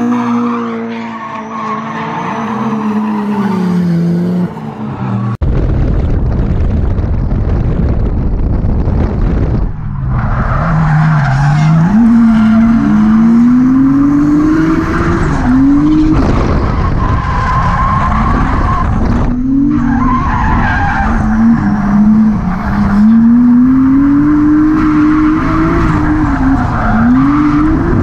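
Nissan Skyline R34 drift car's engine revving up and down with its tyres squealing as it drifts. After a cut about five seconds in, it is heard from the car's own window, with heavy wind noise on the microphone and the engine pitch climbing and dropping again and again with the throttle.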